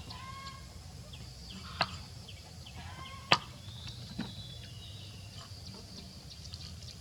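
Faint, short bird chirps over a low steady hum, broken by two sharp knocks about two and three seconds in, the second the loudest, and a lighter knock about a second after that.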